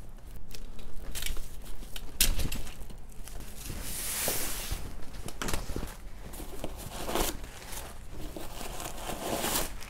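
Packing tissue paper rustling and crinkling in irregular bursts as it is peeled off a new leather handbag's strap and pulled out of the bag, with a few short clicks and a longer tearing rustle about four seconds in.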